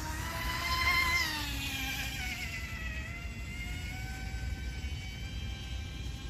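Whine of an RC boat's electric motor as the MHZ Micro Iceberg cruises on a 4S battery. The pitch rises to a peak about a second in, then falls over the next two seconds and runs lower and steadier.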